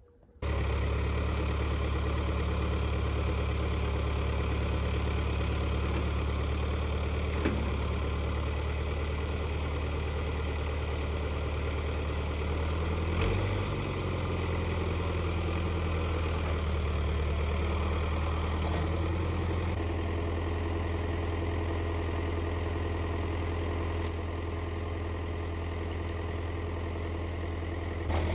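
Engine of the machine pulling a broken fence-post stump out of the ground, running steadily with an even low drone. It shifts briefly about 13 seconds in and eases slightly near the end.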